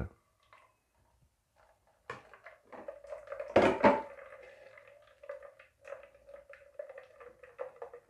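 Blended green juice being strained through a plastic sieve into a plastic measuring jug: liquid trickling steadily, with small clicks of plastic being handled, starting about two seconds in. A louder clatter comes about halfway through.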